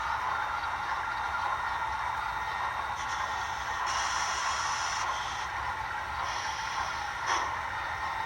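HO scale model diesel locomotives running a freight train on a layout: a steady run of motor and wheel-on-rail noise, with stretches of high hissing a few seconds in and a single click near the end.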